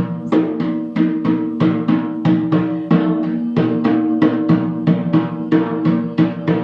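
Music: a steady rhythm of drum strikes, about three or four a second, over sustained pitched tones.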